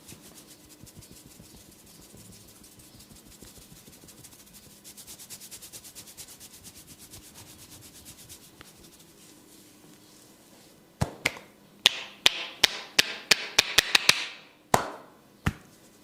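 Hands working a head massage: fast, light, rhythmic finger strokes on the oiled scalp, then about a dozen sharp hand slaps on the head in quick succession.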